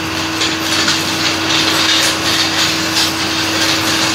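Broom sweeping a concrete shop floor: repeated scraping strokes, about two a second, over a steady hum.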